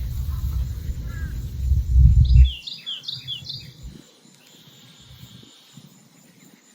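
A low rumbling noise, loudest about two seconds in, then a songbird singing a quick run of short, falling chirps about three seconds in, with fainter chirps earlier.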